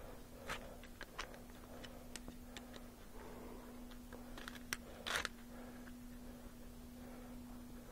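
Faint, irregular small clicks and ticks from a screwdriver and a metal hose clamp being worked on a maple tubing fitting, with a sharp tick and a short, louder scrape about five seconds in.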